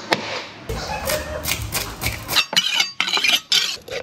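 Kitchen knife scraping and tapping against a wooden chopping board, in a run of quick, irregular strokes that thicken in the second half.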